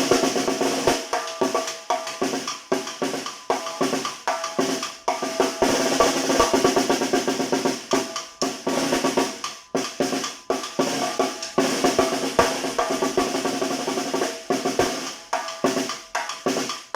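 Tarola (Mexican banda snare drum) played in a fast son rhythm, dense strokes mixed with rolls.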